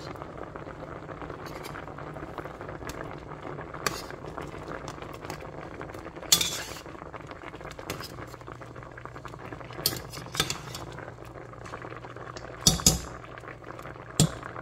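Coconut milk bubbling at a steady boil in a stainless steel pot with fish in it. A metal spoon clinks sharply against the pot several times as it stirs.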